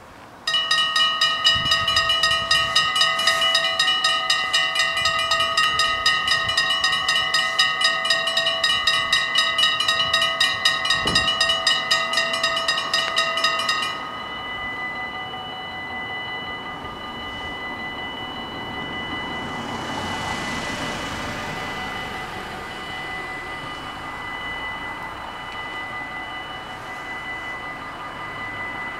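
Electronic warning bells of a Dutch automatic half-barrier level crossing ringing rapidly as the crossing activates about half a second in, while the barriers lower. Around 14 s, with the barriers down, the ringing drops to a quieter steady ring.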